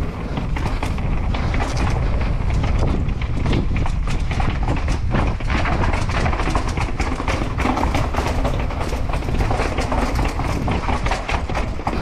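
Wind buffeting the microphone while a mountain bike rides downhill, with frequent rattles and knocks from the bike over rough urban ground.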